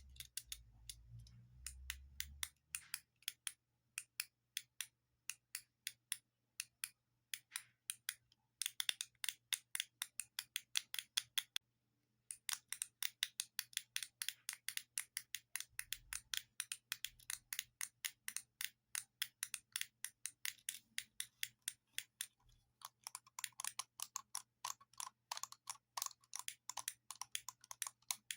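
Rapid, uneven clicking of buttons being pressed, several clicks a second, like typing, with a short pause about halfway through.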